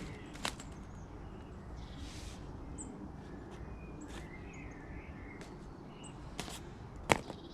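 Faint bird chirps over a low steady background hum, with a few sharp clicks, the loudest about seven seconds in.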